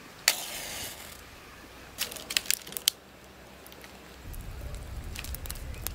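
A matchstick struck once and flaring with a short hiss, followed by a few sharp crackles. About four seconds in, a steady low rumble with dense crackling sets in as a bundle of dry leaves catches fire.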